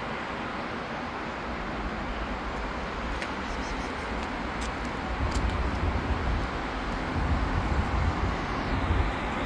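Steady outdoor street noise, a low rumble and hiss like road traffic, with a few faint clicks.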